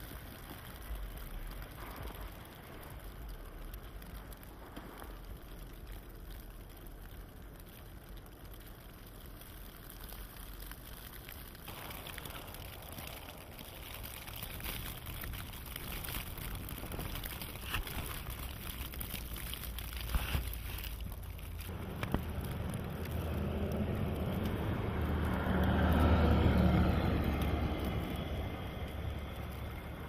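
Blizzard wind blowing steadily. A low engine rumble swells to its loudest about three-quarters of the way through, then eases off.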